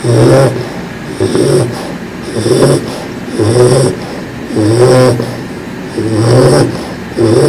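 Bulldog snoring loudly in its sleep: about six snores in an even rhythm, one every second and a bit.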